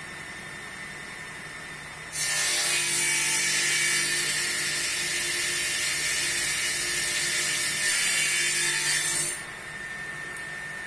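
Table saw cutting a wooden board. The blade's running hum turns into a loud, steady cutting hiss about two seconds in, which lasts about seven seconds and then drops back to the idling hum.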